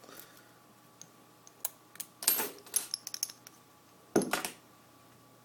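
Small metal clicks and clinks as the freshly picked padlock and lock picks are handled: a scatter of sharp ticks, two clusters of jingling about two and three seconds in, and one more rattle near the end.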